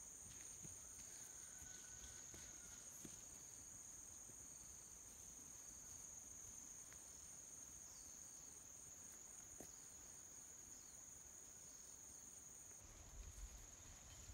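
Insects trilling faintly in dense vegetation: a steady high-pitched buzz, with a second, higher trill above it pulsing about two or three times a second. The higher trill stops near the end, and a low-pitched noise comes in.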